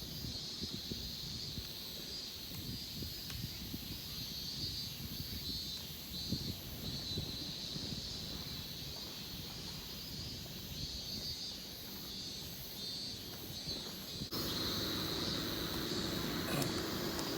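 Faint night-time outdoor ambience: insects trilling steadily over a low, uneven rumble of wind on the microphone. About 14 seconds in, the background abruptly becomes louder and steadier.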